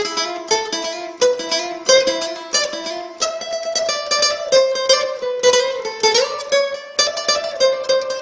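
Solo acoustic guitar playing a quick tarantella melody in fast picked notes, with a slide up to a higher note about six seconds in.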